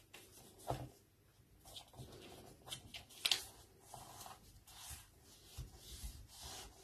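A square sheet of white paper, cut from an A4 sheet, being folded and creased by hand: soft rustling and sliding, with a sharper paper crackle about three seconds in.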